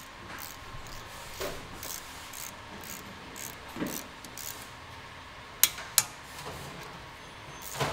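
Ratchet wrench working a bolt on a VW Golf GTI's front brake caliper: scattered scraping and light metallic clicks, with two sharp clicks about halfway through.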